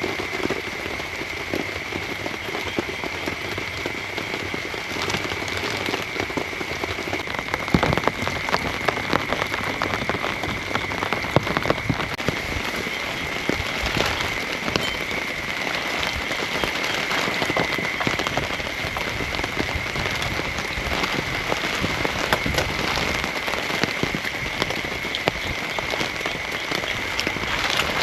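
Heavy rain falling steadily, with many close, sharp drop impacts striking a surface. A steady high-pitched tone runs underneath.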